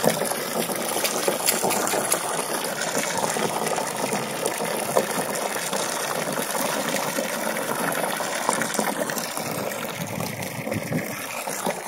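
Garden hose stream pouring and splashing steadily into the water of a plastic kiddie pool.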